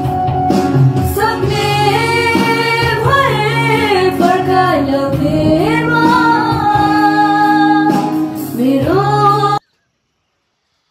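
Background music: a Hindi song with a woman singing a slow, gliding melody over steady accompaniment. It cuts off abruptly about a second before the end.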